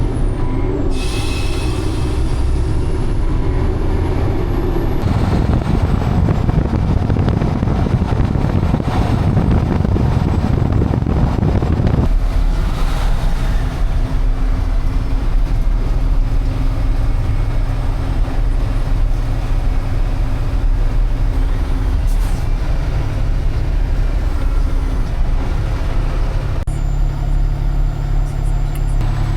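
Heavy dump truck's diesel engine running, heard across several cut-together clips with a deep, steady drone whose character shifts abruptly at each cut.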